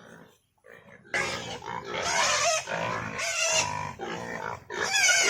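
Pigs squealing and grunting at feeding time: a few faint grunts, then from about a second in loud, repeated high wavering squeals.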